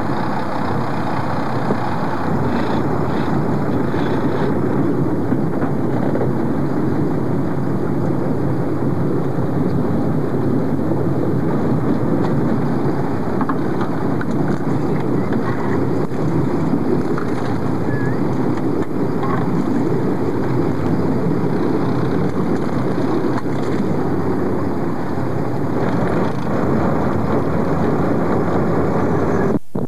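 Steady noise of a boat under way: engine drone mixed with wind and water rushing on the microphone.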